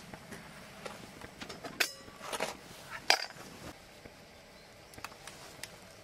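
Stainless steel cookware clinking: the pot's metal lid taken off and set down, with two sharp ringing clanks about a second and a quarter apart, near 2 and 3 seconds in, and a few lighter clicks around them.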